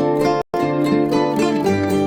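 Background music of quick plucked string notes over held chords, with a brief sudden cut to silence about half a second in.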